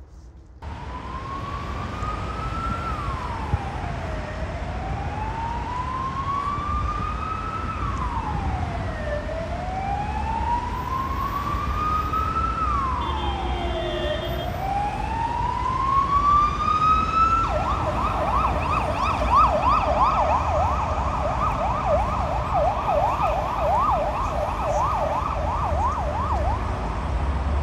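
Emergency vehicle siren in a slow wail, rising and falling about every four to five seconds, that switches to a fast yelp about two-thirds of the way through. Low road-traffic noise runs underneath.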